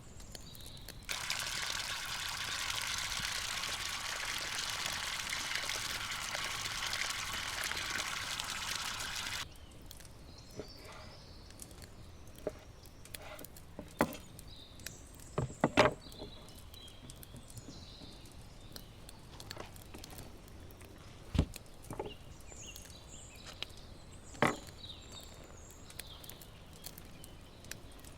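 Water pouring in a steady stream for about eight seconds, starting and stopping abruptly. Then a handful of scattered knocks and clicks, with faint bird calls.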